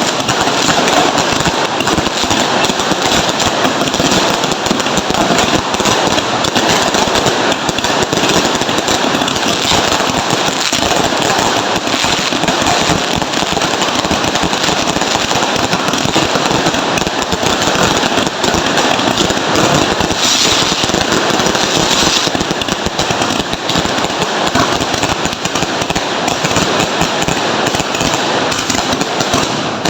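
Fireworks and firecrackers going off in a dense, continuous crackle of rapid pops with no let-up, loud throughout.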